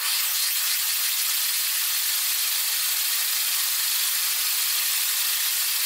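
A 3D-printed nutating disk air engine running on compressed air and spinning a propeller: a steady, even hiss of rushing air that starts abruptly. The builder says the sealing around the disc and the middle gap isn't perfect.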